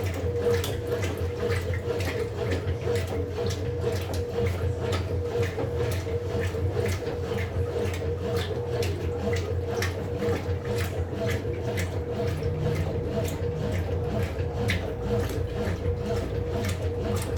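Brastemp Total 7 kg (BWL07) top-load washing machine agitating a load: a steady motor hum under water sloshing in regular strokes, about two or three a second.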